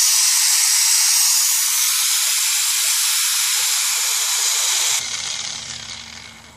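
Brand-new 13-amp, 9,000 rpm 4.5-inch angle grinder running unloaded at full speed with a steady, high-pitched noise, then switched off about five seconds in and spinning down.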